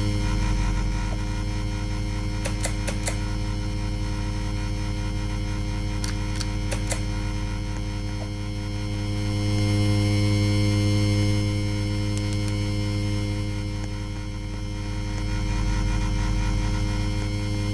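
Ceiling fan motor humming steadily, its level slowly swelling and fading every several seconds. Two short runs of light clicks come a few seconds apart.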